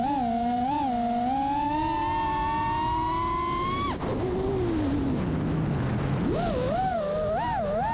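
FPV racing quadcopter's brushless motors whining, pitch rising and falling with the throttle. The pitch climbs slowly for about four seconds, breaks off briefly, then sweeps down low and climbs steeply back up with quick wobbles.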